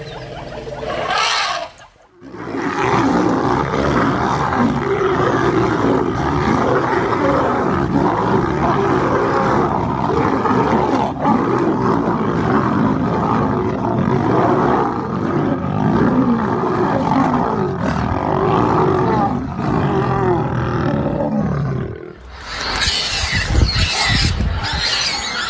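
Large wild animals roaring and snarling continuously, a dense, wavering mass of calls. Near the end it cuts to a different, higher-pitched sound.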